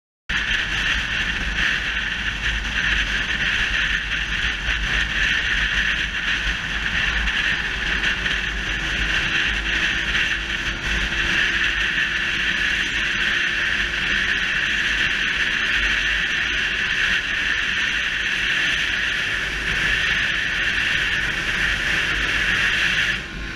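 Yamaha YBR125 single-cylinder motorcycle cruising at speed, heard through a GoPro: a steady rush of wind across the camera's microphone with the engine's low running sound underneath.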